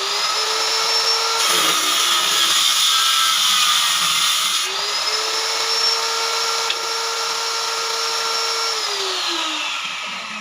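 Electric woodworking power tool running on wood: its motor whine rises as it spins up, sags under a burst of cutting noise, runs steady again, then falls away as the tool winds down near the end.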